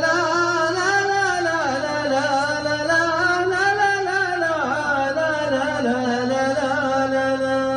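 A solo voice singing one long, unbroken melismatic phrase of a southern Arabian folk melody, the pitch rising and falling in ornaments and settling on a held low note near the end.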